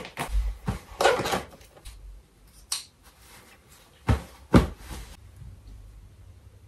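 Packing an open hard-shell suitcase: clothes shuffled about and a few short knocks of hands and items against the case, the loudest two close together about four seconds in, with quiet gaps between.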